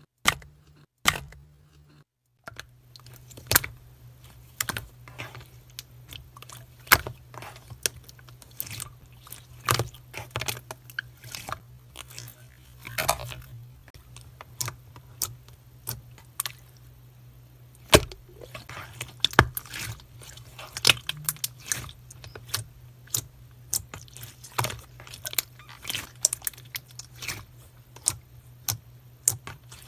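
Crunchy slime being pressed and squeezed: irregular sharp clicks and crackles, several a second, over a steady low hum that comes in after a brief silence about two seconds in.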